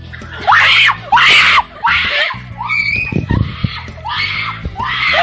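Girls shrieking in fright, about seven high-pitched screams one after another.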